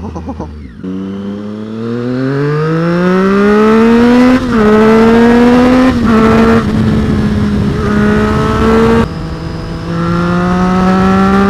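2013 Triumph Street Triple R's 675 cc inline-three engine under hard acceleration through the gears. The pitch climbs steadily, then drops briefly at upshifts about four, six and nine seconds in before climbing again.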